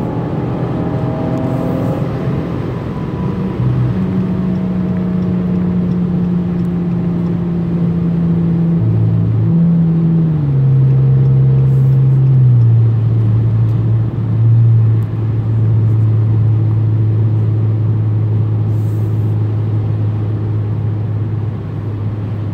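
Inside the cabin, the 3.6-litre Pentastar V6 of a 2015 Chrysler 200S with a muffler delete runs at highway speed, a steady exhaust hum over road noise. Its pitch drops in two sudden steps about ten and twelve seconds in, then holds at a lower, mellow note.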